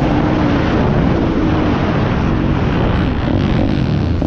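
Piranha P190 pit bike's single-cylinder four-stroke engine running under throttle while riding, with wind rushing over the microphone. The engine note is clear at first, gets mostly buried under the wind noise, and comes back near the end.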